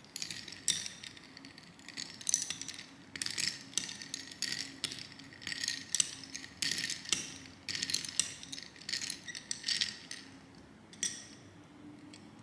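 Irregular clusters of clicks, clinks and clatter from hard objects being handled, some with a short ringing tone, in bursts through most of the stretch and ending with a single clink near the end.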